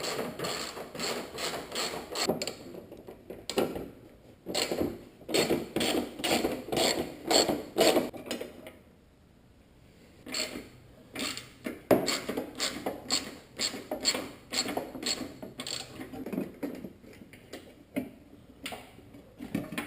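Ratchet wrench clicking in repeated bursts while unscrewing headlight mounting bolts, with a pause of about two seconds midway.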